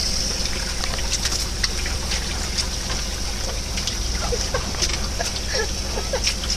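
Steady running, trickling water over a low constant hum, with scattered small clicks and knocks.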